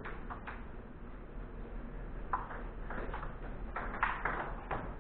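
Table tennis balls clicking off paddles and bouncing on the table, a few sharp clicks near the start, then a quicker run of them from about halfway through as a rally gets going.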